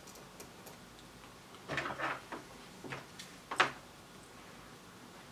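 Small clicks and knocks from tools and a circuit board being handled on a workbench, as the board is set in the helping-hands clips and the soldering iron is picked up. The loudest is a single sharp click about three and a half seconds in.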